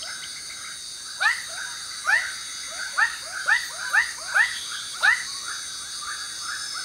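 Frog calls: a run of short, upward-sweeping calls, some in quick pairs, from about a second in until about five seconds in, over a steady high-pitched drone of insects. These are male frogs calling for a mate in a night-time chorus.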